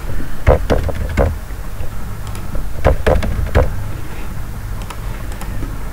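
Computer keyboard keystrokes in two quick runs of about four presses each, a couple of seconds apart, over a steady low hum.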